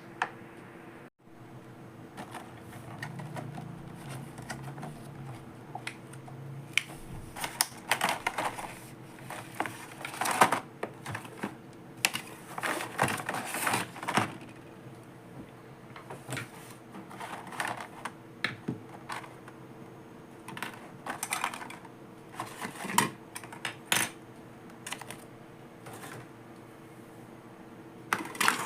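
Small plastic toy accessories from a Barbie beauty salon playset being handled and unpacked: irregular clicks, taps and light clatter, with a few longer rustling passages, over a faint steady hum.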